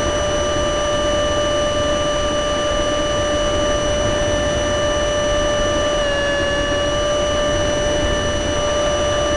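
RC L-39 model jet's motor heard from the onboard camera in flight: a steady high whine over rushing air noise. The whine's pitch dips slightly about six seconds in.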